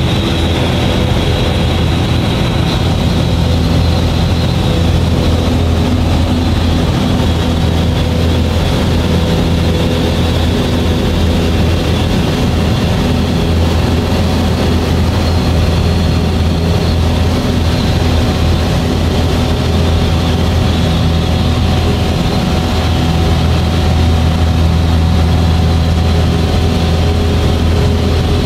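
Light aircraft's propeller engine droning steadily in cruise flight, heard from inside the cockpit: a deep hum with steady overtones and the rush of air over the cabin.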